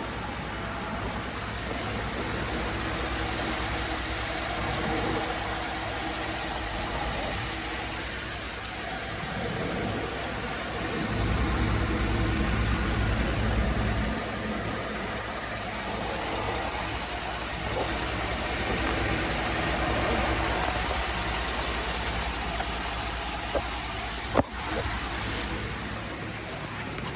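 Chevrolet Avalanche's V8 engine idling with a steady low rumble, a little louder for a few seconds in the middle. A single sharp click comes near the end.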